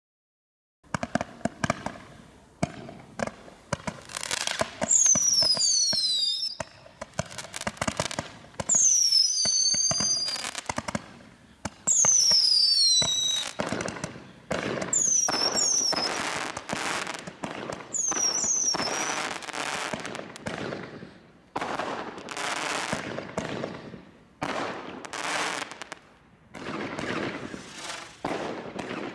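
Consumer firework barrage firing in rapid succession: a dense series of launch shots and crackling bursts that starts about a second in, with several high whistles falling in pitch during the first two-thirds.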